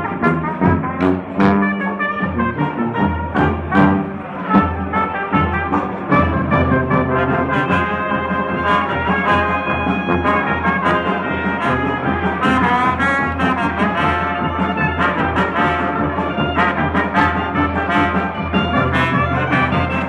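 A small jazz band playing live: trumpet, trombone and clarinet lines over a sousaphone bass line, with banjo or guitar and drums keeping a steady beat.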